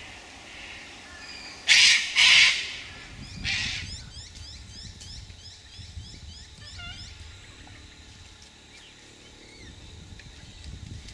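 Sulphur-crested cockatoos screeching: two loud harsh screeches close together about two seconds in and a weaker one a second later. After them comes a quick run of thin, high chirps from a smaller bird.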